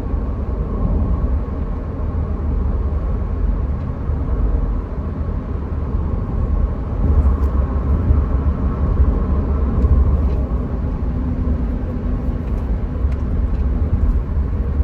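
Steady low rumble of a car being driven, with road and engine noise and no distinct events.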